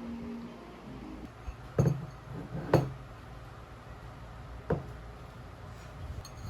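Small hard objects knocking and clinking on a hard surface: three separate knocks, the loudest about three seconds in, then a few faint ticks near the end.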